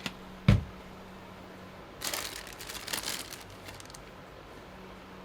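A small click, then a sharp knock about half a second in, followed by a second and a half of crinkly rustling as things are handled on the workbench, over a faint steady hum.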